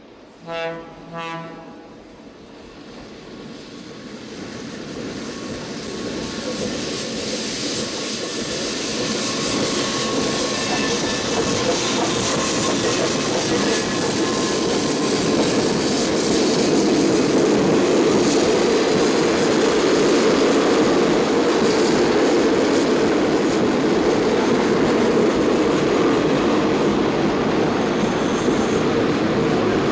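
Two short blasts of a New Haven Railroad diesel locomotive horn, then the train running into a station, its rumble and wheel noise growing steadily louder for about fifteen seconds and then holding steady.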